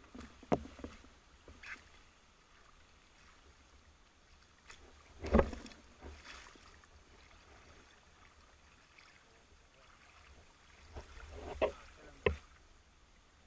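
Water splashing and sloshing as a spearfisher moves through shallow water at night, with scattered short knocks. The loudest splash comes about five seconds in, and two more come near the end.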